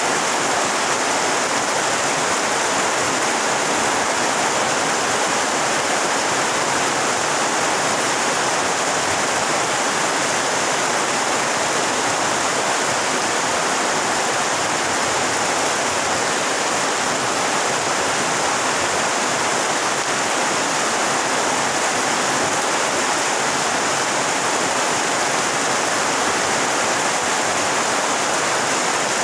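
Heavy rain pouring down onto a pond and the surrounding vegetation, a loud, dense, unbroken hiss of water.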